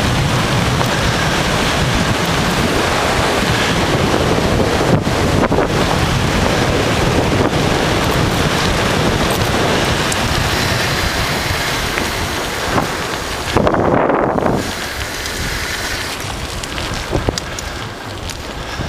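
Wind buffeting the microphone of a camera on a moving bicycle, a steady loud rush with the tyres' noise on the asphalt mixed in. A brief louder gust about three-quarters of the way through.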